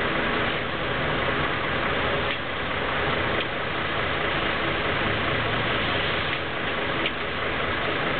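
Rain hissing steadily on a wet city street, with the low hum of traffic engines underneath and a few faint ticks.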